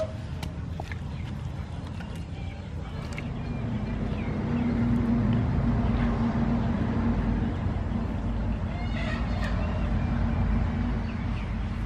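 A steady low rumble with a hum that swells a few seconds in and holds. A chicken clucks briefly near the end.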